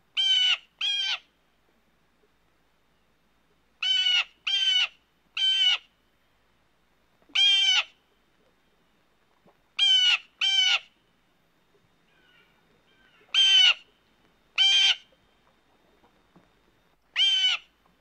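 Blue jay giving harsh, rasping calls, about eleven in all, singly or in quick pairs and threes with pauses of one to two seconds between.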